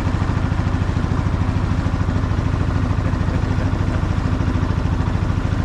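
Small wooden boat's engine running steadily under way, a fast, even beat that does not change.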